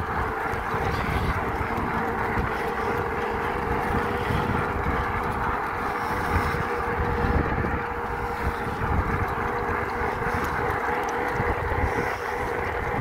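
Electric fatbike with a 48 V 1000 W conversion kit riding fast on asphalt near its top speed of about 38 km/h. Wind rushes over the microphone with a low rumble, and a steady hum runs underneath.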